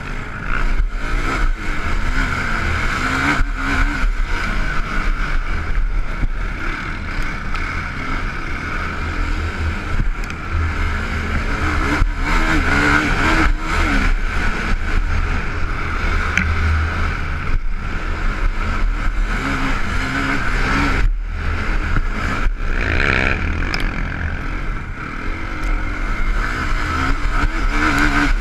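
Can-Am DS450 quad's single-cylinder four-stroke engine raced hard, revving up and down with the throttle, heard from on board, with a few brief drops in the sound.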